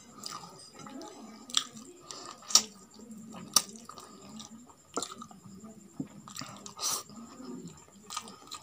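Close-up chewing of roasted chicken and rice eaten by hand, with sharp wet mouth smacks about every second or so.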